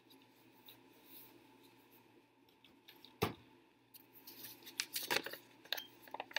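Paper card envelope being handled: quiet at first, one sharp tap about three seconds in, then a run of short crisp rustles and clicks near the end.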